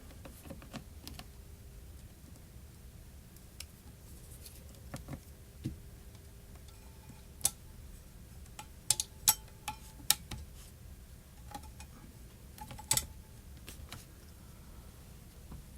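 Scattered light clicks and taps of small tools and phone parts being handled on a work surface, about a dozen over the stretch, with a faint steady hum underneath.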